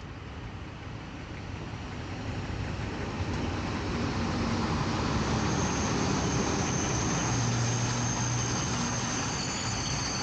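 Freight train of loaded cement hopper wagons rolling past close by, a steady rumble of wheels on rail that grows louder over the first few seconds. A thin, high wheel squeal sets in about halfway.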